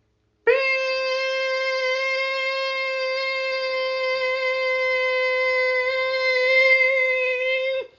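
One long steady high-pitched tone with many overtones, held level for about seven seconds after a half-second pause and then cut off abruptly. It stands in for the Emergency Alert System attention signal.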